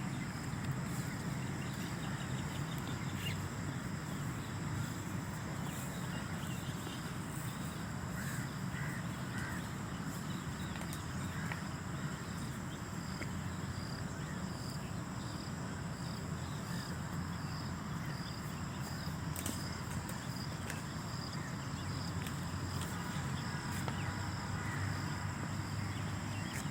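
Outdoor park ambience: birds calling here and there, with crow-like caws, over a steady low rumble and a constant thin high-pitched whine.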